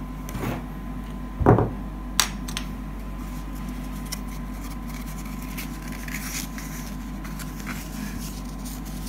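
Small items and packaging being handled on a wooden table: a few light clicks and rustles, with one sharper click about two seconds in, over a steady low hum.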